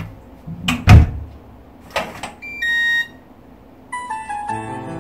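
Front door shutting with a heavy thump about a second in, a latch click a second later, then the short electronic beep tune of a digital door lock locking. Soft keyboard music starts near the end.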